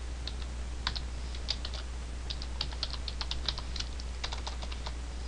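Computer keyboard keys clicking as a word is typed, in quick irregular runs with a short pause about two seconds in, over a steady low hum.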